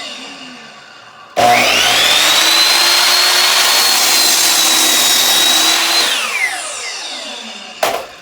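Electric miter saw's motor winding down, then switched on again about a second and a half in. It whines up to full speed, runs for about four and a half seconds, and is released, coasting down with a falling whine. A brief blip of power comes near the end.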